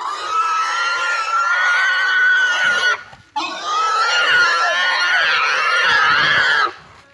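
A large pig squealing loudly in two long, unbroken screams, the first breaking off about three seconds in and the second following at once: distress squeals of a pig being held down and restrained.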